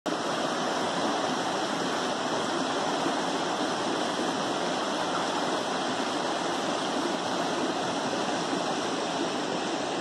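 Rocky forest stream rushing steadily over boulders and small rapids.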